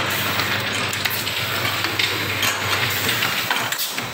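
Automatic rotary soda filling and capping machine running: a steady hiss over a low hum, with scattered light clinks and clicks.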